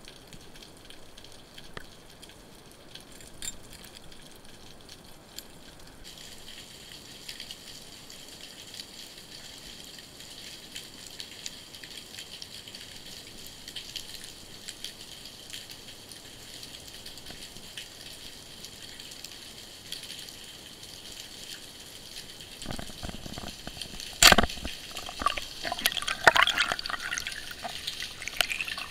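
Underwater sound picked up by a diving camera: a steady water hiss with faint scattered clicks. About three quarters of the way in it grows louder, with one sharp knock followed by bubbling and crackling.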